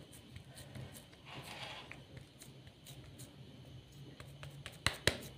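Soft rustling and light taps of hands pressing breadcrumb-coated kebab mixture into a plastic kebab mould, with a few sharp clicks about five seconds in.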